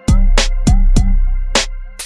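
Outro music with a steady electronic beat: sharp drum hits about three a second over a sustained bass, with short pitched notes in between.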